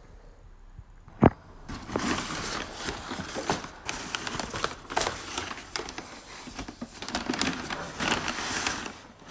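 A sharp knock about a second in, then continuous crinkling and rustling of packing paper and a cardboard box being moved about.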